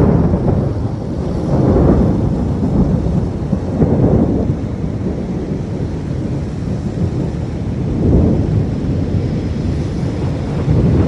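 Thunder rumbling through a heavy rainstorm, swelling several times (near the start and about 2, 4 and 8 seconds in), over steady rain.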